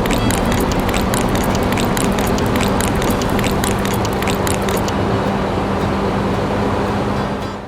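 A small motor running with a steady hum, with rapid irregular clicking for the first five seconds or so; the sound drops away near the end.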